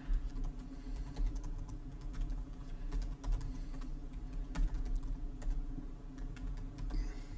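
Typing on a computer keyboard: a quick, irregular run of key clicks over a low steady hum.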